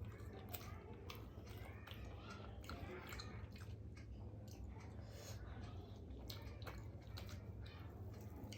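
Close-miked chewing of masala dosa: irregular wet clicks and smacks of the mouth at work, over a steady low hum.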